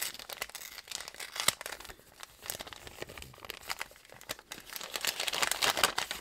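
Brown kraft paper packet crinkling and rustling as it is unwrapped by hand, its washi tape seal pulled off; the crinkling grows thicker and louder near the end.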